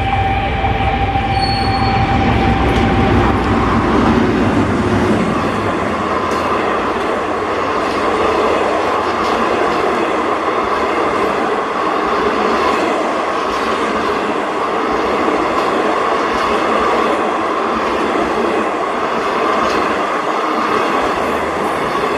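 Passenger train rolling through a level crossing. A heavy low rumble and a steady tone fade out in the first few seconds. After that the coaches run past with a steady rolling noise and a high ring from the wheels.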